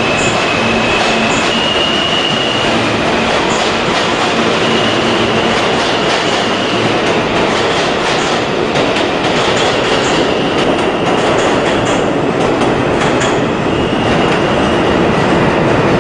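R160 subway train running along the station platform: a steady loud rumble of steel wheels on rail, with clicking over the rail joints in the second half and a few short, high wheel squeals.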